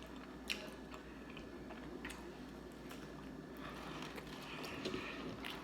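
Quiet chewing of fried chicken close to the microphone, with a few soft mouth clicks and smacks.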